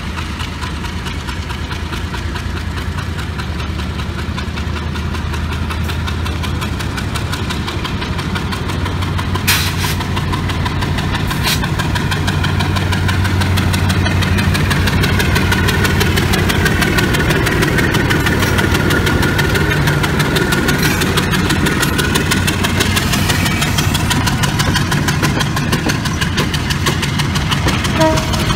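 Diesel-electric locomotive's engine working hard as it hauls a passenger train past, a steady deep drone that grows slowly louder. Two sharp metallic knocks come about ten and eleven seconds in.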